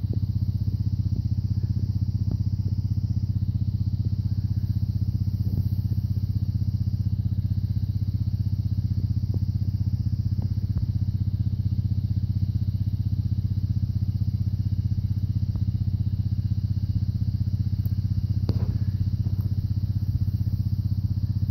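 An engine idling steadily: a constant low drone with a fast, even pulse, and a few faint clicks over it.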